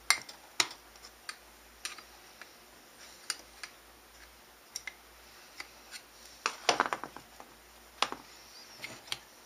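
Irregular small metallic clicks and taps of a Winchester Model 61 rifle's bolt and receiver parts being handled while the bolt's retaining spring is pressed down, with a short clatter about two-thirds of the way through.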